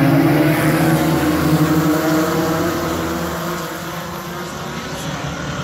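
A pack of sportsman modified race cars racing past, several engines at once with overlapping pitches, fading off as the field moves away down the track.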